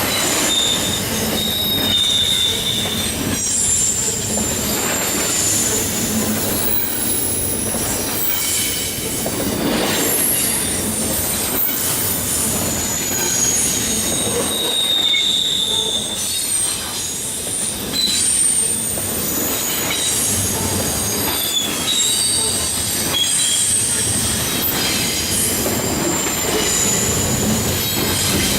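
Double-stack container freight cars rolling past with steady wheel-on-rail noise, the wheels squealing in short high-pitched tones that come and go every few seconds.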